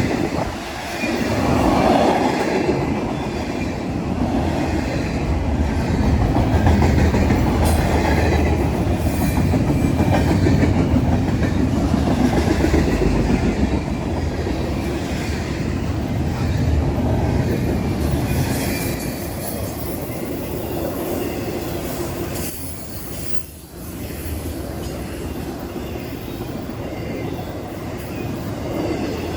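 CSX freight train's cars rolling past steadily on the rails, with a brief drop in loudness about three quarters of the way through.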